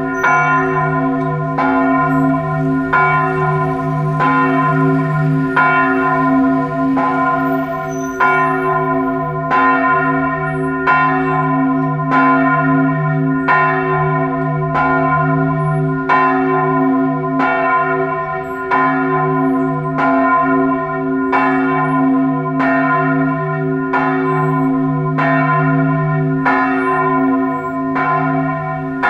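Cathedral church bells tolling a death knell: evenly spaced strokes, a little quicker than one a second, over a low bell hum that keeps sounding between them.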